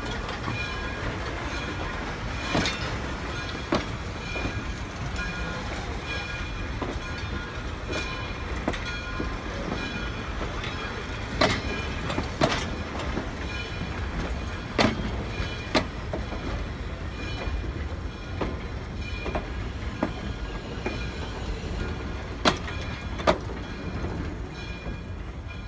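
Heavyweight steel passenger coaches rolling past, with a steady rumble of wheels on rail, irregular sharp clicks and knocks, and a faint high squeal that comes and goes. The sound drops away near the end as the last car clears.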